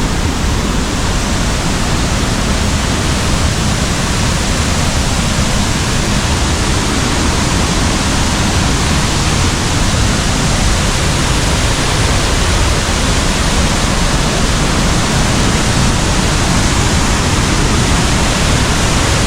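Twin waterfall pouring: a loud, steady rush of falling water.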